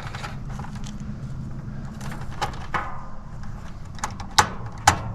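Hand work on a heat pump's outdoor unit while wires and plugs are reconnected: a run of sharp clicks and metallic clinks starting about two seconds in, the loudest near the end, over a steady low hum.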